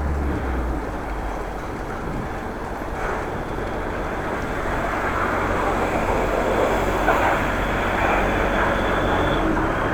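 Steady wind and road noise of a bicycle ride, picked up by a helmet or handlebar action camera, growing a little louder in the second half.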